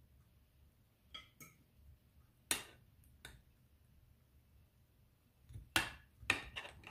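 Metal fork and spoon clinking against a pot and a plate while serving fish: scattered sharp clicks, one loud clink about two and a half seconds in and a quick cluster near the end.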